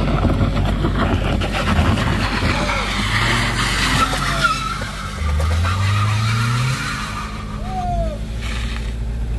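Small Toyota Calya MPV climbing a steep, broken incline, its engine revving up about five seconds in as the front tyres spin and scrabble on loose gravel and asphalt, with short tyre squeals near the end. The wheelspin shows the car struggling for grip on the slope.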